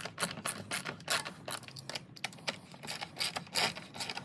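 Ratchet wrench clicking in quick, uneven runs of sharp ticks while backing out the 8mm bolts that hold the coolant reservoir.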